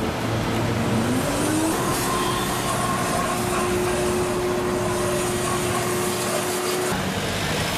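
Canister vacuum cleaner cleaning a car's interior, its motor hum rising in pitch about a second in, then holding steady and stopping near the end, over steady street traffic.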